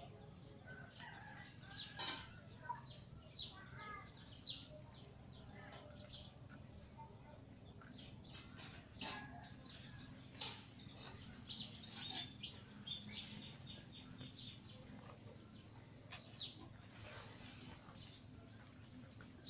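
Faint, irregular rustling and crackling in dry leaf litter as dogs scramble through undergrowth, with birds chirping now and then.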